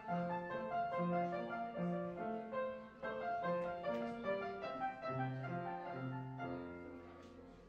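Classical-style piano music: a melody of distinct notes over a slower bass line, fading out near the end.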